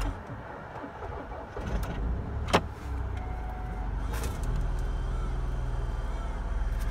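VW Passat B6 2.0 FSI four-cylinder petrol engine cold-starting at about −27 °C: uneven cranking at first, a sharp click about two and a half seconds in, then the engine catches and settles into a steady fast cold idle around 1000 rpm.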